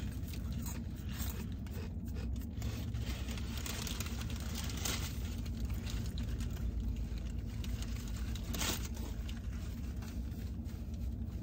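Paper sandwich wrappers rustling and crinkling in the hands of two people eating, with chewing and scattered small crunches, over a steady low hum.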